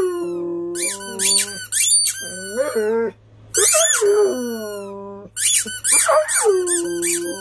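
A dog howling along with a squeaky toy: drawn-out, wavering howls mixed with short high squeaks, with a brief pause about three seconds in.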